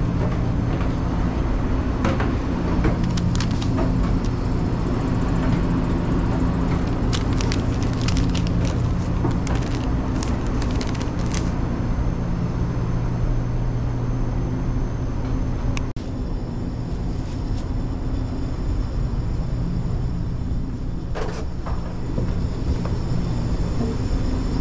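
Steady hum of commercial pizza-kitchen equipment, fans and motors droning with a few fixed low tones, with scattered light clicks and clatter of things being handled. The hum dips briefly about two-thirds of the way through and runs a little quieter after.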